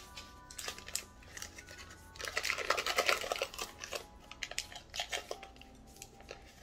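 Paper wrapper crinkling and tearing as a stick of butter is unwrapped by hand: a run of small rustles and clicks, densest about two to three seconds in.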